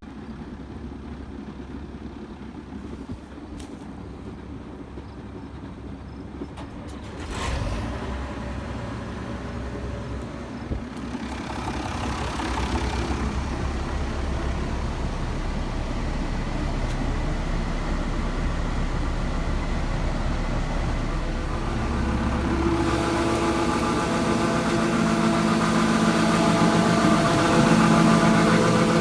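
Farm machinery engine running, growing steadily louder as it picks up, with a brief knock about a quarter of the way in and a stronger, whining mechanical hum in the last few seconds.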